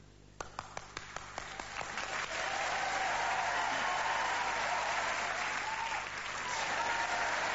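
Audience applause: a few separate claps about half a second in, swelling within two seconds into steady full applause.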